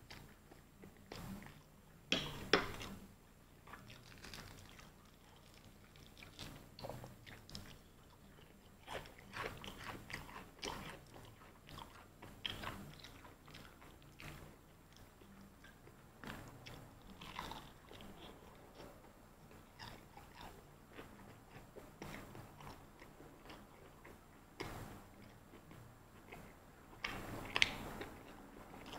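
A person biting into and chewing crispy fried chicken, with irregular crunches throughout. The loudest bites come about two and a half seconds in and again near the end.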